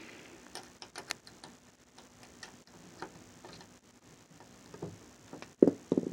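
Small, irregular metal clicks of an Allen wrench turning the set screw of a doorknob clockwise to tighten it, with two louder knocks near the end.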